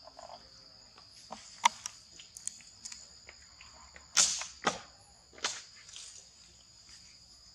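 Steady high-pitched insect drone, with scattered sharp clicks and a few brief rustling scrapes about four to five and a half seconds in.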